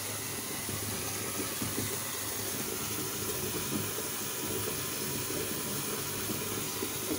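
A bath bomb fizzing steadily as it dissolves, held under the bathwater.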